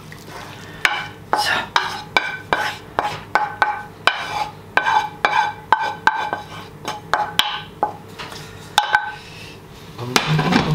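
Wooden spoon scraping and knocking against a non-stick frying pan as minced-meat sauce is scraped out into a ceramic baking dish: a run of sharp taps, about two a second, each with a brief ringing from the pan. A louder clatter near the end as the pan is put back on the glass-ceramic hob.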